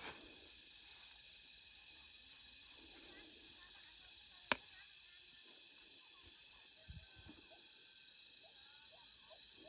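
Steady high-pitched drone of an insect chorus, with one sharp click about halfway through and a few faint short chirps near the end.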